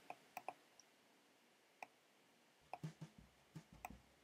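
Computer mouse clicking over near silence: a few separate clicks, then a quicker, irregular run of clicks with low thumps in the last second and a half.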